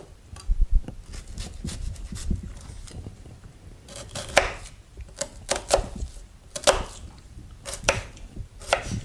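Kitchen knife chopping a red onion on an end-grain wooden cutting board: a run of sharp knife strikes on the board, light at first and louder from about four seconds in, roughly one or two a second.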